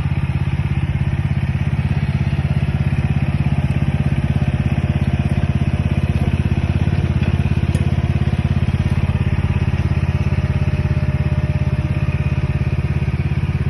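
BlueBird Mex 600 mini excavator's engine running steadily at constant speed, with a fast, even firing beat.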